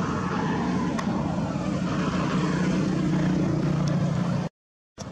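Motor vehicle engine running steadily with a low hum, cut off suddenly by an edit near the end.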